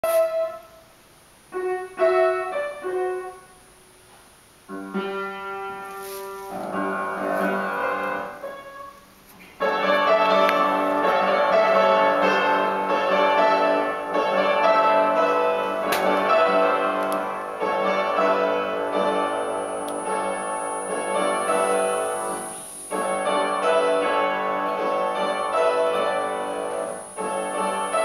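Piano music: a few separate notes at first, then held chords, then fuller, continuous playing from about ten seconds in.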